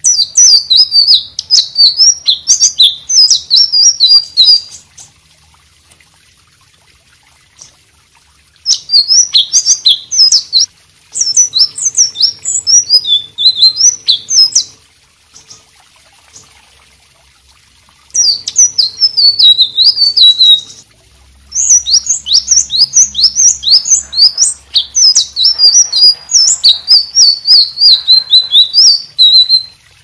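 Caged selendang biru, a blue flycatcher, singing in full voice: rapid high notes that dart quickly up and down in pitch, delivered in five long phrases of about two to eight seconds with short pauses between.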